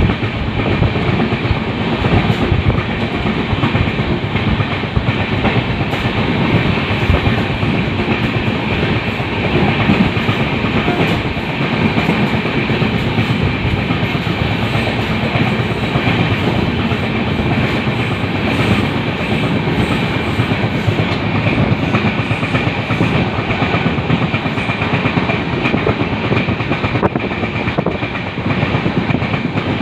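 Indian Railways LHB passenger coach running at speed: a steady rumble of wheels on the track, with a clickety-clack of rail joints.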